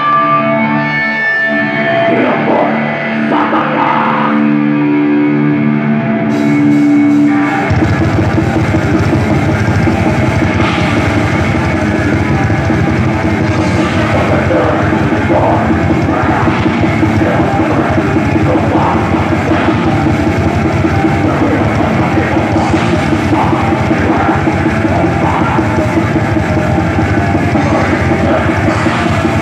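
Heavy metal band playing live: a guitar holds sustained notes at first, then about seven seconds in the drums and full band come in and carry on loud and dense.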